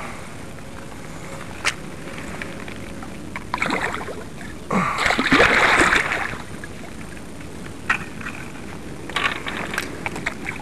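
Water splashing at the surface, a short splash a little over three seconds in and a louder one lasting about a second and a half about five seconds in, with a few sharp clicks before and after.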